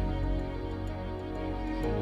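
Slow, soft cinematic background music of held, sustained chords, with a chord change near the end.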